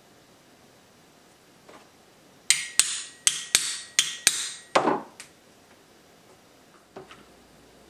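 Ball-peen hammer striking a hand-forged steel leather punch held on a leather strap over a wooden block. Seven quick, sharp strikes come over about two seconds, with a metallic ring under them, and the last is a duller knock.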